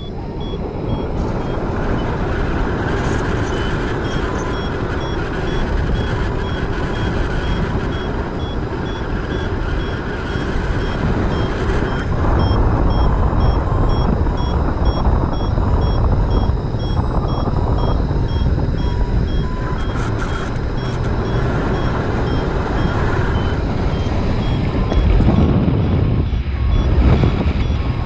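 Strong wind buffeting the microphone during paraglider flight, with a flight variometer beeping in short repeated tones as the glider climbs in lift.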